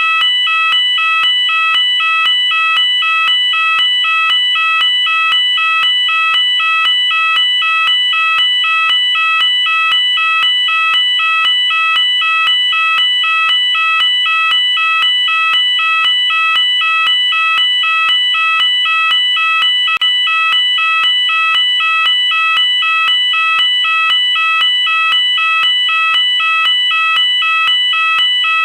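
UK electronic fire alarm sounder going off continuously, loud and steady, alternating between two high tones in an evenly repeating cycle.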